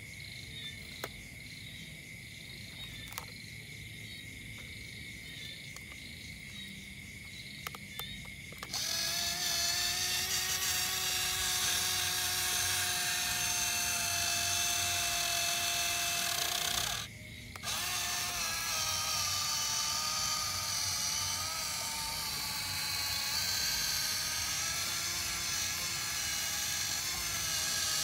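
Small electric motors of a remote-control toy tractor whining as it runs. A quieter steady hum with a few clicks gives way about nine seconds in to a louder, steady motor whine, which stops for about a second past the middle and then starts again.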